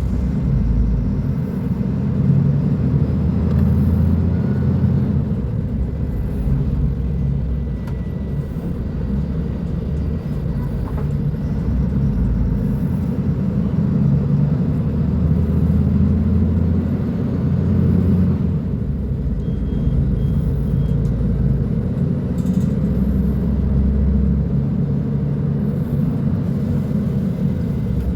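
Diesel engine of a Mercedes-Benz O500U city bus with a Voith automatic gearbox, running with a steady low rumble. The engine speed rises and falls over several seconds at a time.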